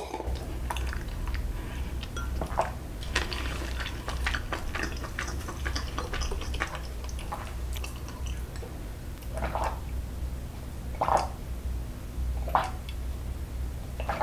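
A person gulping water from a glass, close to the microphone: small sips and swallows, then three louder gulps about a second and a half apart near the end, over a low steady hum.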